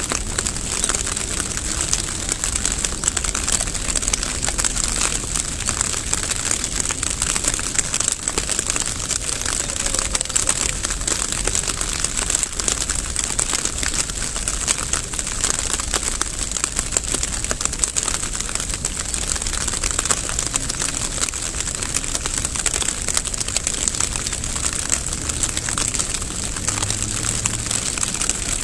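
Steady rain falling, a dense crackling patter of many fine drops that neither builds nor fades.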